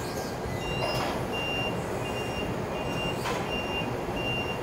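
Toyota forklift's reversing alarm beeping at an even pace, about one beep every three-quarters of a second, as the forklift backs up with a load on its forks, over the steady low running noise of the machine.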